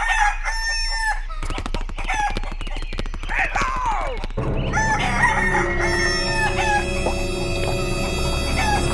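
Rooster sound effect: clucking calls and a crow that falls away. About halfway through, music with held notes and a steady bass comes in.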